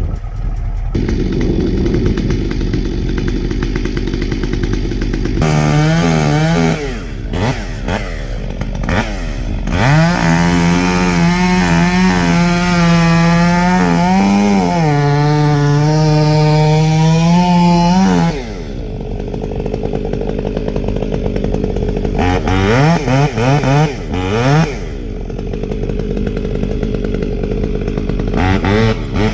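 Stihl chainsaw idling and revved in short blips, then held at full throttle for about eight seconds in the middle, its pitch sagging briefly as it works in the cut, before dropping back to idle and blipping again near the end.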